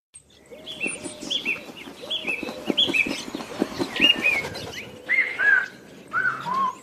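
Bird chirps at the start of a song's backing track: quick repeated paired chirps, then a run of chirps that step down in pitch toward the end.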